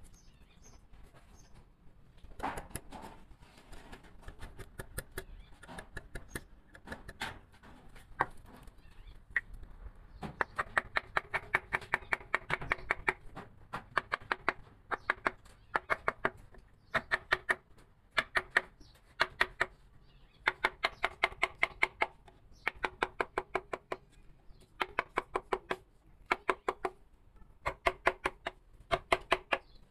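A carving chisel or gouge tapped with a mallet into wood. It comes in quick runs of light taps, many a second, lasting one to three seconds each with short pauses between them.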